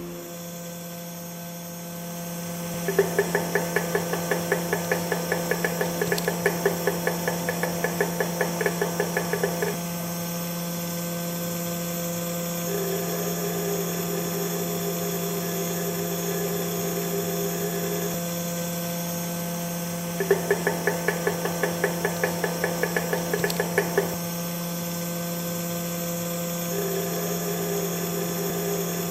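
Vibration platform test machine running with a steady hum. Twice it gives a fast rattle of about six knocks a second, for about seven seconds and then about four, with a smoother buzz between them.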